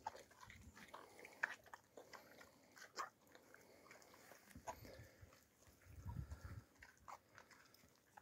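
Faint sounds of a young Alabai (Central Asian Shepherd) dog eating from a bowl: scattered clicks and crunches of chewing, with a brief low rumble about six seconds in.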